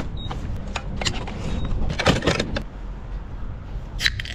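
Gas pump fuelling sounds: a short beep as the fuel grade button is pressed, then several clicks and knocks of handling the pump and nozzle, over a steady low rumble. About four seconds in, a sharp crack as the tab of an aluminium soda can is pulled open.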